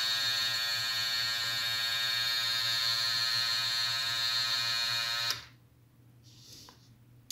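Small DC motor of a 3D-printed toy washing machine running under its motor control circuit, a steady electric buzzing whine. It cuts off suddenly about five seconds in, leaving near silence.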